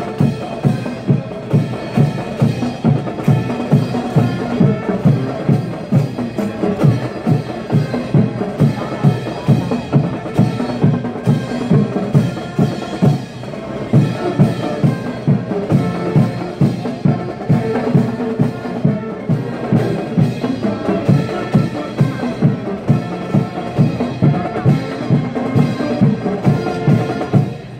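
Marching band playing: brass over a steady drum beat, about two beats a second, with a short break about halfway through.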